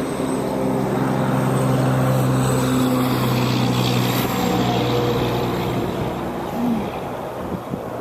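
A steady, low, engine-like drone over wind and storm noise. It fades out about six seconds in.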